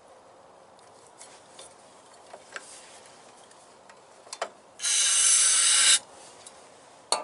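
Small handling clicks and taps, then one spray of brake cleaner from an aerosol can down into a dry carburetor: a loud, even hiss lasting about a second. The spray primes the empty carburetor for starting. A sharp click comes near the end.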